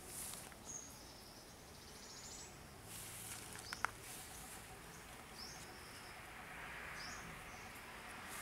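Faint outdoor ambience: a bird gives short high chirps several times over a low background hiss, with one sharp light knock about halfway through.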